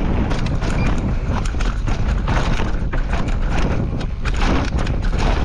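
Downhill mountain bike ridden fast over rough trail, filmed from a camera on the saddle: a dense, rapid clatter of knocks and rattles from the bike over a steady low rumble.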